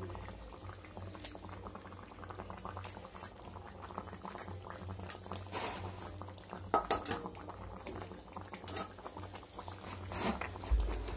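Meat curry gravy boiling in an aluminium pot, a steady bubbling, with a few short knocks or clicks, the loudest about seven seconds in.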